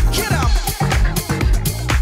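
Disco-style dance music with a steady beat and strong bass.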